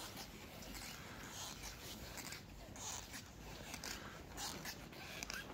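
Footsteps crunching on packed snow: a series of short, irregular scraping crunches.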